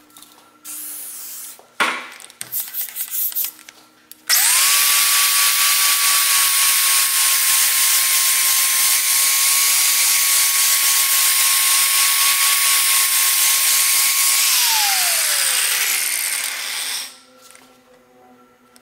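An aerosol can of WD-40 hissing in one spray and then a few short squirts. About four seconds in, an angle grinder with a flap disc spins up and sands the face of an aluminium bar for about ten seconds, its motor whine steady. The motor is then switched off and winds down in a falling whine while the disc runs out against the metal.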